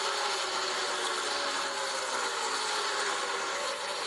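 Stock-car engines of a racing pack running at speed: a steady, dense engine noise with faint pitch glides.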